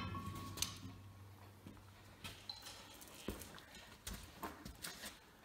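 Faint, scattered knocks and clicks, with a short ringing tone and a low hum dying away at the very start.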